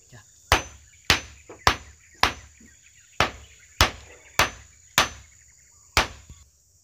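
Hammer driving nails into wood: about nine sharp blows at an even pace of a little under two a second, with two short pauses.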